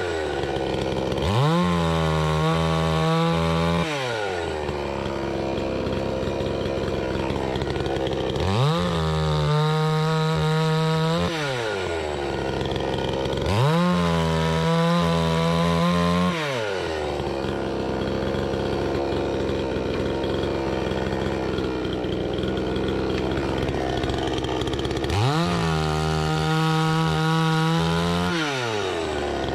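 Gasoline chainsaw sawing fruitwood firewood, its engine revving up to full speed four times and holding there about three seconds each time, then dropping back to a steadier running note in between.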